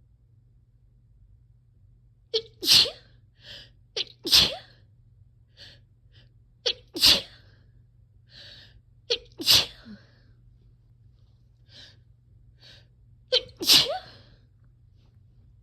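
A run of sneezes, five in about eleven seconds. Each is a quick sharp catch followed a moment later by the loud sneeze, with fainter short sounds in between: sneezing from a cold.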